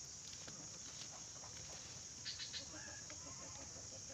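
A chicken clucking and calling faintly in the second half, over a steady high-pitched insect drone, with a few quick ticks a little over two seconds in.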